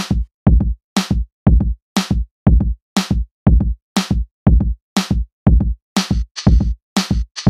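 Electronic background music with a steady drum-machine beat, about two heavy bass-drum hits a second, and a hissing cymbal layer joining near the end.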